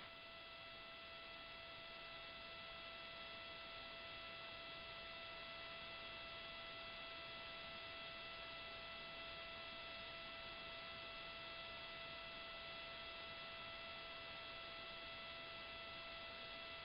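Faint, steady electrical hum and hiss from the launch commentary's open audio line, with a high whine made of several steady tones that never change.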